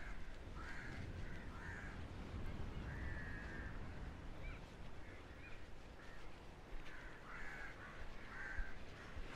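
Crows cawing: a cluster of short harsh caws at the start, one longer call about three seconds in, and another cluster near the end, over a steady low rumble.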